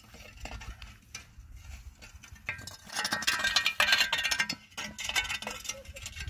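Metal jingling and clinking with short ringing tones, loudest for about two seconds in the middle.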